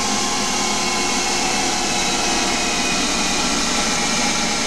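Hercus CNC lathe spindle running at a steady speed with an aluminium workpiece clamped in its air chuck: an even machine whine with several fixed tones over a hiss.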